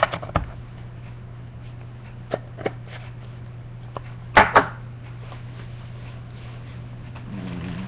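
Tobacco tin being closed: a few light clicks and taps, then two loud sharp clacks close together about four and a half seconds in as the lid goes on.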